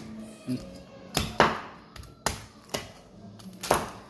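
A knife chopping through crispy roasted pork belly (lechon) on a cutting board: about five sharp, crunchy cuts through the crackling skin.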